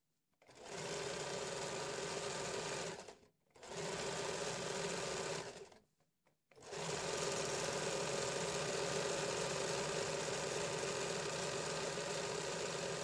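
Usha Janome Excella DLX electric sewing machine running an overlock stitch along a fabric edge. It sews in three runs, stopping briefly about three seconds in and again just before six seconds, then runs steadily on.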